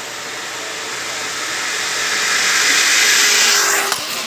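Zipline trolley pulleys whirring along the steel cable. The whir grows steadily louder as the rider comes down the line, then drops off with a sharp click just before the end.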